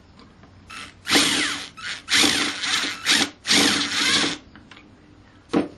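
Older 18-volt cordless impact driver run in about five short trigger bursts, its motor pitch rising and falling with each one, driving a large bolt through a socket on a hex-to-3/8 adapter.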